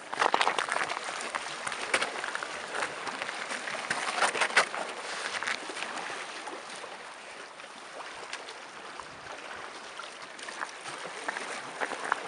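Seawater lapping and splashing against the rocks of a breakwater, with scattered knocks and scuffs over the first few seconds.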